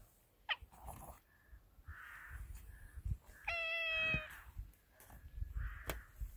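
A cat meowing once, a steady, slightly falling call lasting under a second, about three and a half seconds in.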